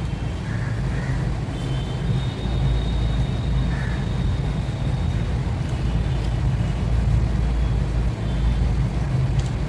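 Steady low rumble of background noise, like passing traffic or a running fan, with faint thin high tones that come and go.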